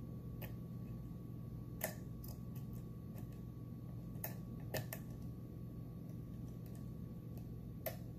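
Small metallic clicks and ticks, scattered and irregular, as a dimple pick works the pins of a Mul-T-Lock Interactive+ dimple lock cylinder under tension. The sharpest click comes about two seconds in, a few come close together near the middle, and one comes near the end, over a steady low hum.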